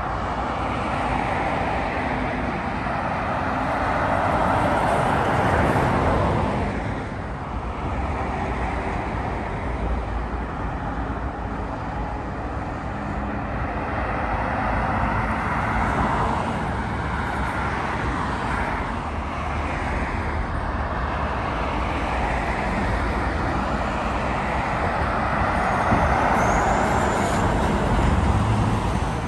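Road traffic passing: tyre and engine noise of cars and articulated lorries, rising and falling as each vehicle goes by. It is loudest near the end as a cabover lorry pulling a container trailer passes close, with a brief high squeal.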